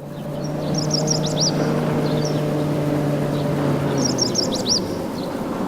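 A songbird singing two short, rapid, chattering phrases of high notes, about a second in and again about four seconds in, over a steady low engine hum that stops about four seconds in.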